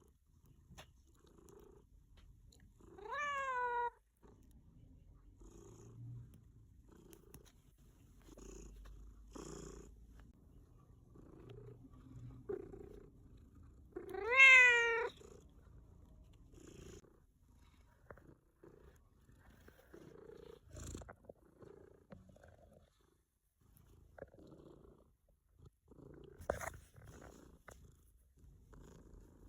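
A pet cat purring softly in slow pulses, with two short meows that rise then fall in pitch, about three seconds in and about fourteen seconds in, the second one louder.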